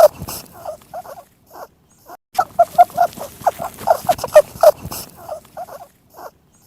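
A rabbit making short, rapid calls in quick runs, with a brief pause about two seconds in and scattered calls near the end.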